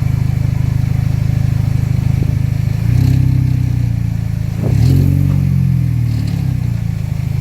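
Vehicle engine idling with a rattle, revved up twice, about three seconds in and again near five seconds, falling back to idle each time.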